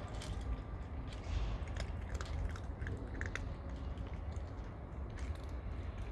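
Cats eating, with many small crunching clicks of chewing, thickest in the first half, over a low steady rumble.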